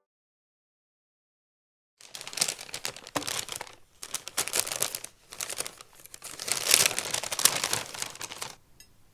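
About two seconds of silence, then a Mister Donut takeout bag rustling and crinkling in several bursts as it is handled, stopping shortly before the end.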